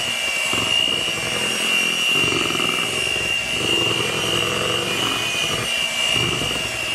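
Electric mixer running steadily with a high motor whine, its beaters whipping cream cheese frosting.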